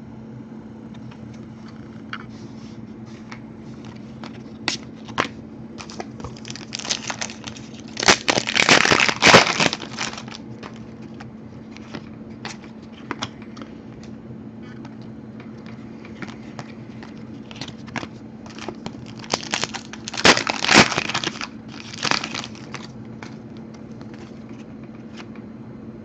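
Trading-card packs and cards being handled: two spells of loud crinkling and tearing of pack wrappers, about eight seconds in and again about twenty seconds in, with scattered light clicks of cards between. A steady low hum runs underneath.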